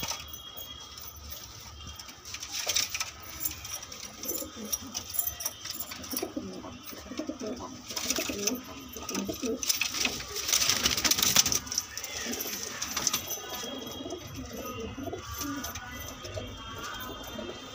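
Domestic pigeons cooing in a loft, with a louder noisy stretch about ten seconds in.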